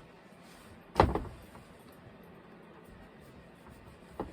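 A single sharp knock about a second in, followed by faint room tone and a small click near the end.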